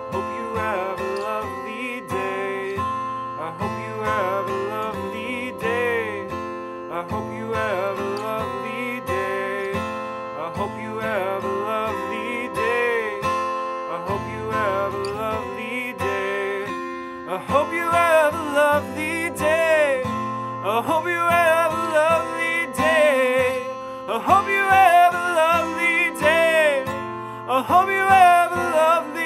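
Taylor steel-string acoustic guitar strummed steadily, with a man's wordless singing over it that grows louder about halfway through.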